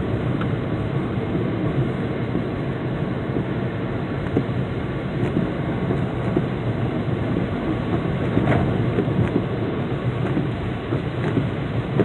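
Steady heavy rain, with a few sharp ticks scattered through it.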